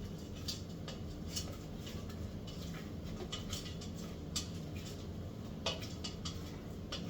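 Scattered light clicks and clatter of kitchen utensils against dishes as chicken wings are tossed in sauce, over a low steady hum.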